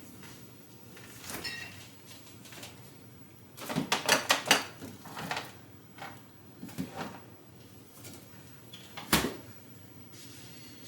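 Light knocks and clatters of kitchen jars and containers being handled: a quick rattling cluster about four seconds in, a few scattered clicks after, and one sharper knock near the end.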